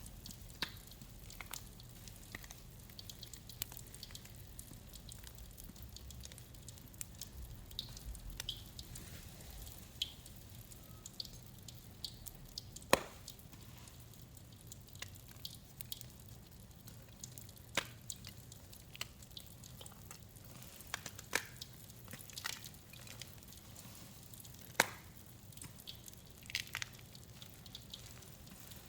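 Gym chalk being crushed by hand in a wet mix of pine cleaner and bath crackles: scattered, irregular sharp crunches and clicks, a few much louder than the rest, over a faint steady hum.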